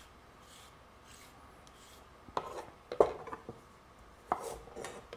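A few faint scrapes of a vegetable peeler along a carrot. From about two seconds in comes a chef's knife chopping through the carrot onto a wooden cutting board: about five sharp knocks.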